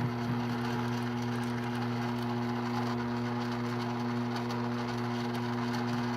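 Mini lathe motor running at a steady speed with a constant hum, while the lathe faces the end of a piece of 3/8 square stock.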